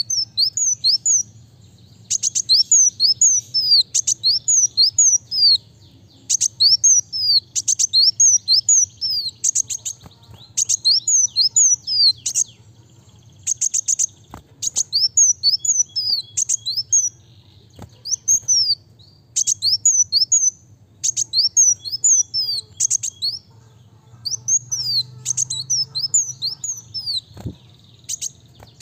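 A sunbird (kolibri wulung) sings in repeated bursts of quick, high, sweeping chirps. Each phrase lasts a second or two, with brief pauses between.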